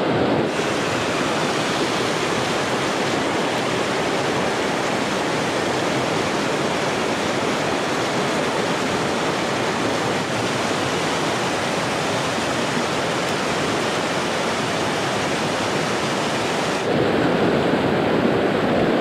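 Creek rapids rushing steadily over rocks, with the creek running high after flood rains. About two seconds before the end the sound turns fuller and lower.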